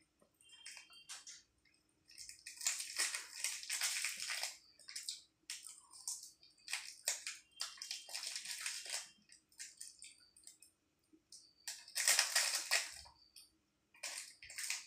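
A clear plastic pastry wrapper crinkling in repeated short bursts as a spoon scrapes pastry cake out of it.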